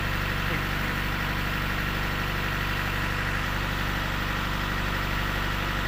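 Steady drone of an engine running on board a fishing boat, even and unchanging in pitch and level.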